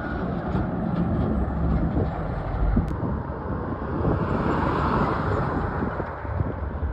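Heavy trucks and road traffic passing: a steady engine rumble with tyre noise, swelling about four to five seconds in.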